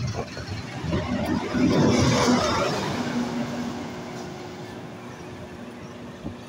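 Small diesel shunting locomotive and a loaded flat wagon rolling past, wheels clattering over rail joints, loudest about two seconds in. The locomotive's engine then hums on a steady low note that fades as it pulls away.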